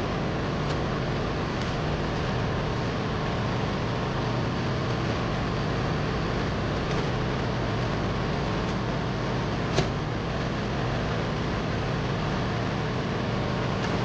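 Steady rush of air and low hum of a running Liebert computer-room air conditioning unit's blowers, with a few faint clicks and one sharper click nearly ten seconds in.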